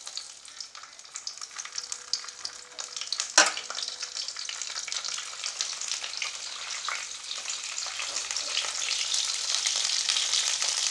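Okra frying in hot oil: a dense sizzle full of small crackles that grows louder, with one sharp pop about three and a half seconds in. The okra is spitting and popping hard in the oil.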